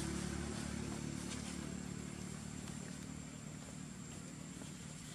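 A motor engine's steady low hum, even in pitch, fading away over the first few seconds and leaving only a faint hum.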